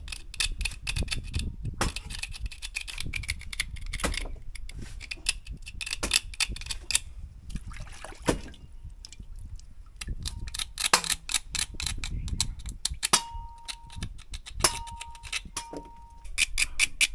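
A knife blade scraping and clicking against a spider conch shell in quick strokes, cleaning sand and sea grime off the shell.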